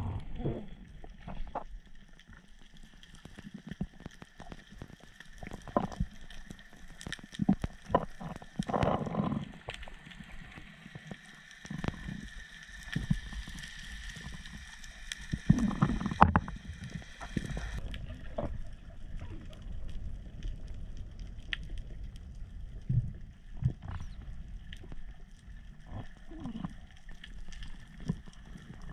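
Underwater sound on a reef dive: muffled water noise with many scattered sharp clicks and knocks, and two louder rushing swells of water about nine and sixteen seconds in.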